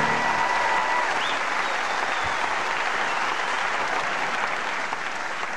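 Live theatre audience applauding at the end of a comic song, the applause tapering off gradually towards the end. The last held note of the music fades out about a second in.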